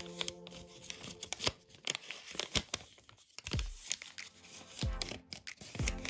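Origami paper being handled, folded and creased by hand: irregular papery crackles and crinkles, with a few soft low thumps.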